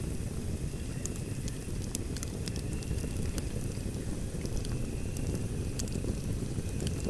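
Wood fire in a fireplace burning with a steady low rumble and frequent sharp crackles and pops, and a faint high whistle that comes and goes.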